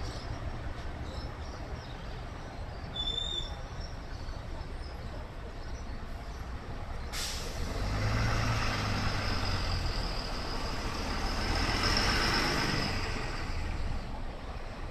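Three-car diesel railcar train running as it pulls away, its engine drone low and steady. About seven seconds in, a hissing rush starts suddenly and lasts about five seconds before easing off.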